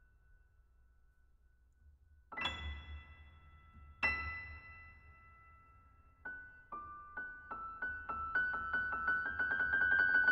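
Piano music: a struck chord about two seconds in and another near four seconds, then from about six seconds repeated notes that come faster and grow louder.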